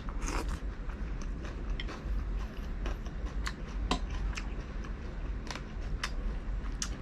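Close-miked chewing and biting of pan-grilled seafood, with scattered short wet mouth clicks over a low steady background.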